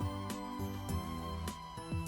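Gentle instrumental background music with a regular beat of struck notes.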